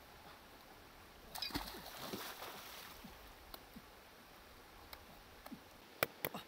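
Shallow stream flowing steadily, with a rustling, splashing stretch about a second and a half in. Near the end come two sharp knocks a third of a second apart: a machete blade chopping into a green fruit on the rock.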